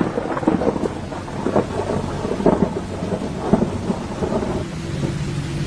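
Storm noise of heavy rain and rushing floodwater, with irregular crackling from wind and rain hitting the phone's microphone. Near the end a steady low engine hum comes in.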